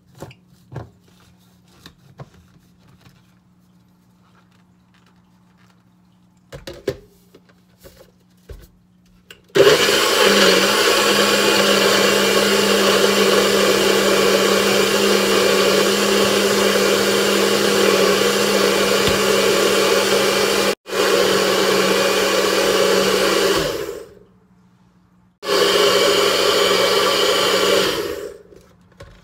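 Personal bullet-style blender blending blueberries and banana into a milkshake: a few light knocks of the cup and blade being handled, then a loud steady motor whir of about fourteen seconds with a momentary break, a short pause, and a second pulse of about three seconds as the cup is pressed down again.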